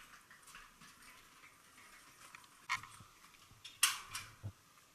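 A few sharp clicks and knocks from a metal door's handle and latch as the door is opened. The loudest click comes about four seconds in.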